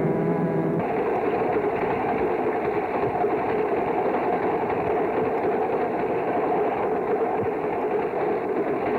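Train running on the rails: a loud, steady mechanical rumble and clatter that starts and cuts off abruptly, with a brief pitched tone over it in the first second.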